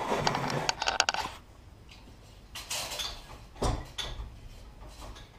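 Hand-operated hydraulic pump working a ram, with clicks and metal clatter: a burst of rapid ticks in the first second, then two shorter bursts about three and four seconds in. The ram is pressing a welded frame into a bow to bring it back into square.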